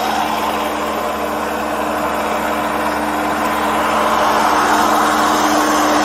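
Backhoe loader's diesel engine running steadily up close, a constant hum at two pitches under a dense mechanical noise that grows slightly louder near the end.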